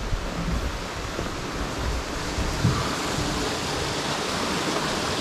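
Steady rushing of a mountain stream, with a few soft footstep thumps in the first few seconds.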